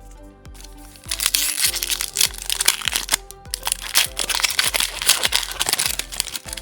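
Foil booster pack wrapper crinkling loudly as it is handled and torn open, starting about a second in, over steady background music.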